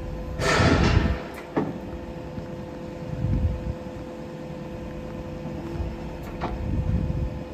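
Wheel loader running with a steady engine hum while its hydraulics raise and angle the front-mounted dozer blade. A loud rushing noise comes about half a second in, and there are a couple of sharp clicks.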